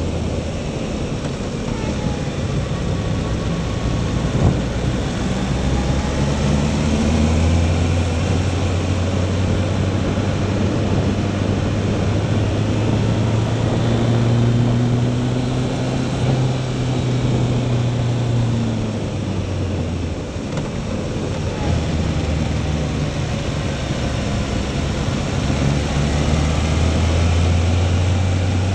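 Motorcycle engine running on the move, heard on board, its pitch rising and falling as the rider opens and closes the throttle through the bends, over a steady rush of wind and road noise.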